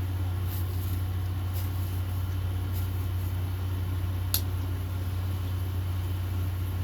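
A steady low hum, with a few faint ticks and one sharper click about four seconds in.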